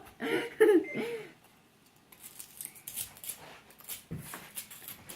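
A child's short strained vocal sounds, then a small digging tool scratching and chipping at the hard dig block in a run of light scrapes and ticks.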